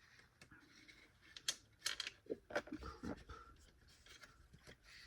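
Quiet handling of a plastic vacuum cleaner housing during disassembly: a few light clicks and scrapes as a screw and plastic parts are worked loose, most of them between about one and a half and three seconds in.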